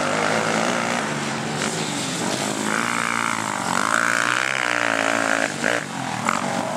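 Racing quad (ATV) engines revving on a dirt motocross track, the pitch climbing and dropping back again and again as the throttle is worked.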